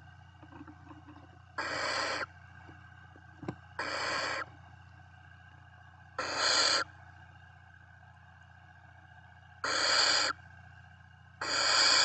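Barn owl chicks giving their harsh hissing begging calls (the owlet 'snore'): five short hisses of about two-thirds of a second each, a couple of seconds apart, the last starting near the end.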